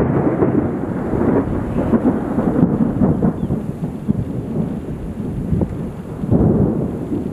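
Rolling thunder from a nearby thunderstorm: a long, continuous rumble that swells loudest at the start and again about six seconds in.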